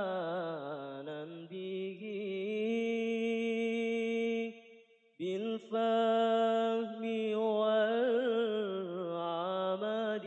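A solo voice reciting the Qur'an in Arabic in the melodic tilawah style: long held notes with wavering ornaments. It breaks off for a breath about halfway through, then goes on.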